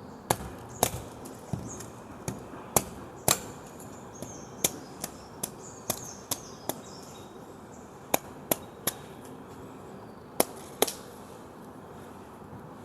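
A fresh coconut being chopped with a blade: a string of sharp chops into the husk, several in quick runs with short pauses between, stopping about two seconds before the end.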